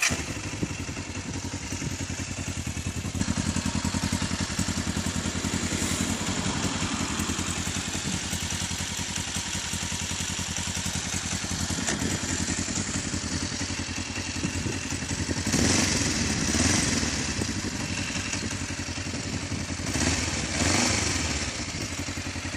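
Kawasaki ER-5's 500 cc parallel-twin running through an aftermarket Akrapovic exhaust, idling with an even, rapid pulse. It is revved briefly twice about fifteen seconds in, and twice more about twenty seconds in.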